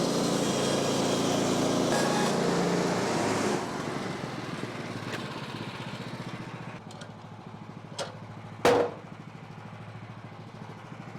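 Portable bandsaw mill's gas engine running as the blade saws through an oak log. It is loud for the first three and a half seconds, then eases to a quieter run. A sharp knock comes near the end.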